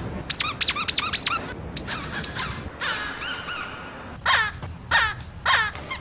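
Cartoon sound effect of pony hooves squeaking like rubber toys: a quick run of short, high squeaks, then more squeaks spaced further apart, some bending down in pitch.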